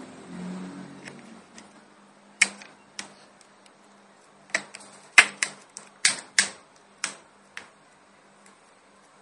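A run of sharp, irregular plastic clicks, about ten in five seconds and loudest in the middle: the thin plastic back cover of a white Samsung Galaxy S II (GT-I9100G) being snapped onto the phone clip by clip.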